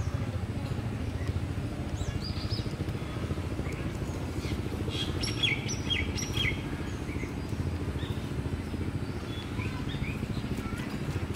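Birds chirping in short, high notes, with a cluster of calls about five to six and a half seconds in, over a steady low rumble.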